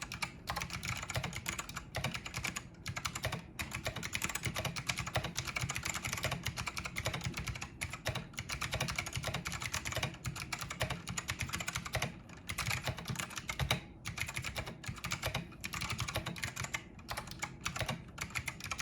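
Fast continuous typing on a Matias Tactile Pro Mini keyboard, its Alps-style clicky switches clattering at a steady pace, with two brief pauses about twelve and fourteen seconds in.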